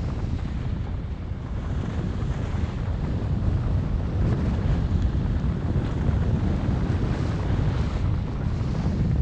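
Wind rumbling on a GoPro microphone as it moves downhill on skis, with a hiss of skis sliding over groomed snow that grows stronger partway through.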